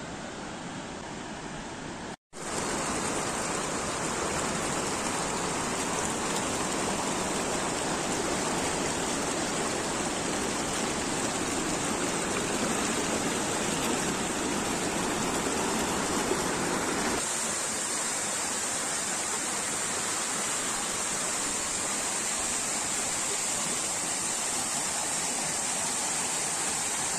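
Steady rush of a mountain river flowing over rocks, cut off for an instant about two seconds in. About two-thirds of the way through it turns thinner and brighter, the splash of a small waterfall falling into a pool.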